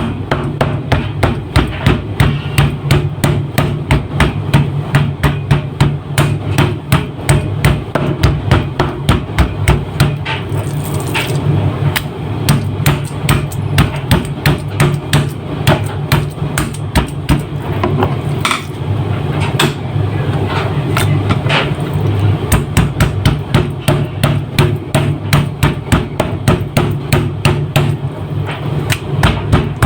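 Meat mallet pounding raw chicken breast on a board in quick, steady repeated blows, tenderizing and flattening the tough breast meat.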